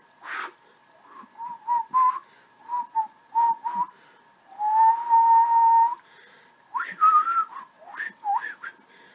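A man whistling through pursed lips, a halting whistle from someone who has always found whistling hard: a few short notes, one longer held note about halfway, then some higher notes sliding up and down near the end.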